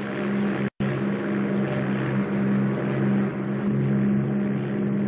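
Steady engine drone with a constant low hum, cutting out for an instant under a second in.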